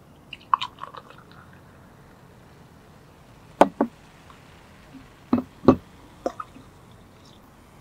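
Cola poured from a plastic bottle into small glasses: a few soft splashes early on, then several short, sharp knocks and gurgles as the bottle and glasses are handled and set down on the table.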